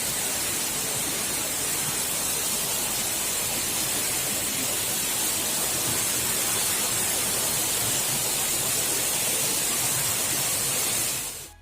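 Waterfall pouring into its pool: a steady rush of falling water that fades out sharply near the end.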